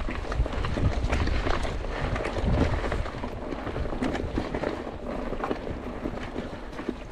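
Mountain bike riding fast down a rough dirt singletrack: wind buffeting the microphone, with the tyres rolling over dirt and roots and the bike clattering and knocking over bumps.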